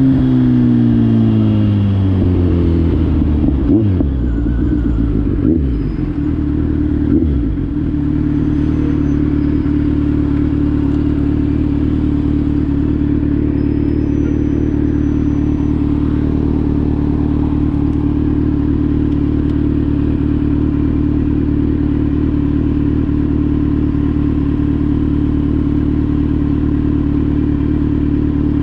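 Kawasaki Z900 inline-four motorcycle engine running through an SC-Project GP1 aftermarket exhaust: the revs fall away at the start, a few short throttle blips follow, and from about eight seconds in it settles to a steady idle.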